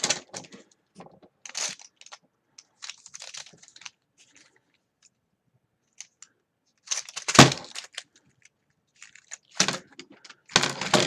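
Scattered clicks, rattles and scrapes of a gaming keyboard's plastic parts being handled as it is taken apart, with one louder knock about seven seconds in.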